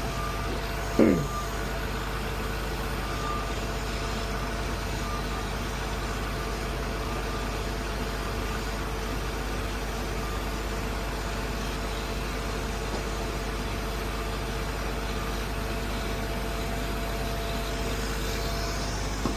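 Cat asphalt paver's diesel engine running steadily, with a short falling sound about a second in.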